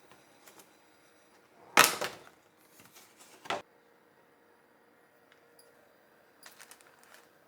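Kitchen handling sounds: a loud clack about two seconds in, a second about a second and a half later, and a few faint taps near the end.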